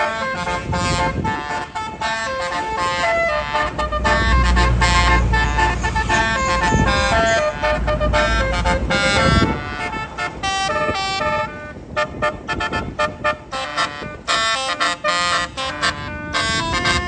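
Indonesian tour bus's telolet basuri musical horn playing a tune in quick runs of stepping notes, with shorter choppy notes near the end. The low rumble of a bus engine swells about four seconds in and fades near the tenth second.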